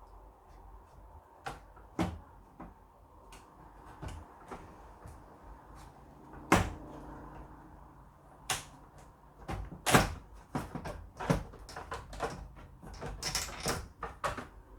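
Hands working cable connectors and plastic parts inside an Acorn RISC PC case, making scattered clicks and knocks of plastic and metal. They come sparsely at first and then thicker and louder in the second half, with single sharp knocks about six and a half and ten seconds in.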